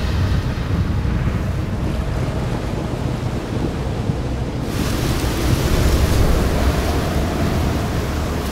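Storm ambience of a film soundtrack: a steady, deep rumbling wind, with a brighter hissing rush joining about halfway through.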